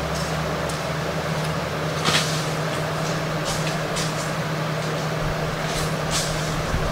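A steady machine hum with one constant low tone, and a few faint taps over it.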